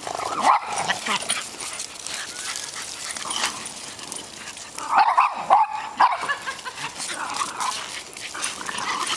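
Small dogs barking and yipping in rough play, with the loudest barks about half a second in and a quick cluster around five to six seconds in.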